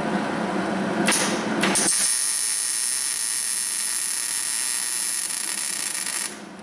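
Welding arc crackling as a nut is welded onto a broken exhaust manifold bolt to extract it: a short burst about a second in, then one steady run of about four seconds that stops shortly before the end.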